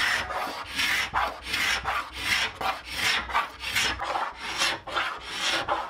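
A hand scraper is pulled over wood in quick, repeated rasping strokes, about two to three a second, stripping off old varnish.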